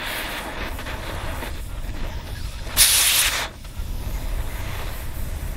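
Oxy-acetylene cutting torch hissing steadily as its flame melts through an aluminium rifle lower receiver, with a much louder burst of hissing about three seconds in that lasts under a second.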